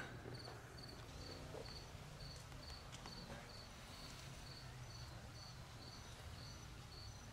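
Faint insect chirping, a short high-pitched pulse repeating evenly about three times a second, like a cricket, over a low steady outdoor rumble.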